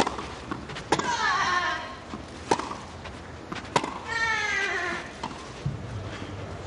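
Tennis rally on clay: a ball is struck about five times at an even back-and-forth pace. On two shots a woman player lets out a long shriek that falls in pitch.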